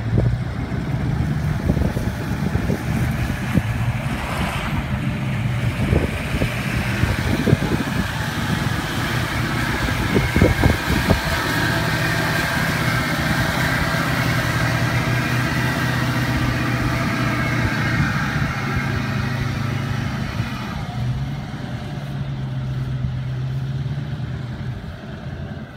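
Ford Super Duty pickup's engine running under load while its wheels spin in mud as it is towed free on a strap. The engine note holds steady, with spinning-tyre noise building in the middle and easing off after about twenty seconds, and a few knocks between about six and eleven seconds in.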